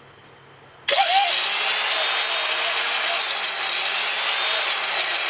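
Sioux valve seat grinder motor switched on about a second in and running steadily at speed with a high whine, in working order.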